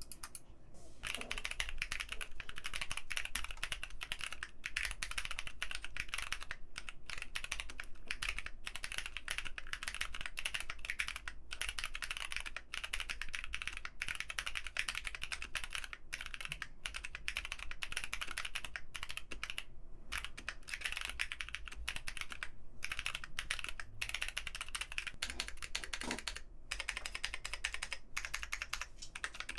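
Continuous fast typing on a Keychron Q1 V2, an aluminium-cased mechanical keyboard: a dense stream of keystroke clacks, broken now and then by brief pauses.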